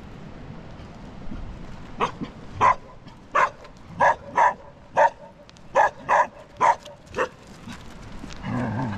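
A dog barking: about ten short barks, roughly two a second, starting about two seconds in.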